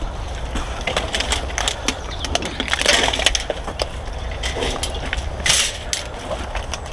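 A metal wire shopping trolley being dragged and wrestled out of dry brambles and undergrowth: twigs crackling and snapping against the wire frame, with louder crashes of brush about three seconds in and again near the end.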